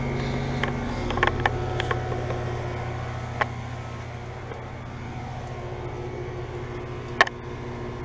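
Goodman GSZ14 heat pump running in heat mode, its Copeland scroll compressor and outdoor fan giving a steady hum that grows a little fainter. A few light taps and one sharp click about seven seconds in.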